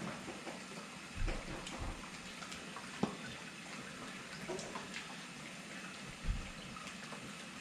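Warm water trickling and dripping as it is forced into a frozen refrigerator water line with a plunger-type thaw tool. A few soft knocks and one sharp click about three seconds in.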